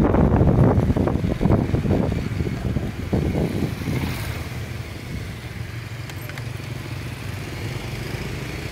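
Motorbike riding along a road: heavy wind buffeting on the microphone for the first few seconds, which drops away about four seconds in, leaving the steady low hum of the motorbike engine.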